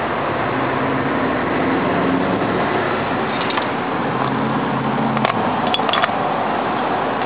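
Steady background noise with a low hum that swells and fades twice, and a few short light clicks a little past halfway, such as small metal figurines knocking together as they are handled.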